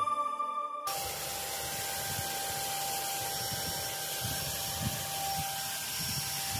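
Small electric paint spray machine running steadily while spraying gold enamel paint, a constant whine over a hiss. It starts about a second in, after music cuts off.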